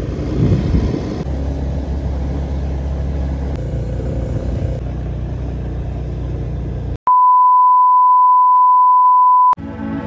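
Low, steady rumble of a vehicle travelling a dirt road. About seven seconds in, it cuts to a loud, steady electronic beep tone that holds for about two and a half seconds and stops abruptly.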